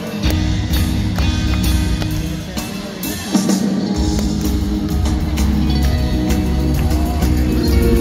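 Live rock band playing, heard through the PA in a large arena hall: electric guitars, upright double bass and drums. The low bass drops out for about a second around three seconds in, then comes back.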